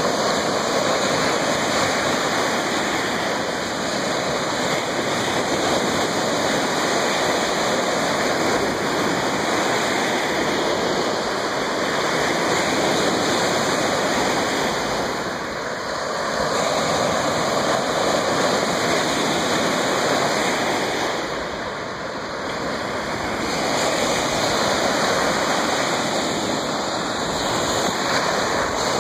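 Lake Superior surf washing onto the shore in a continuous rush that swells and eases, with two brief lulls, about halfway and about three-quarters of the way through.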